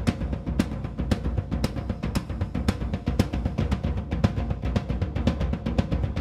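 Background music with a steady drum-kit beat, about two strong hits a second and lighter hits in between.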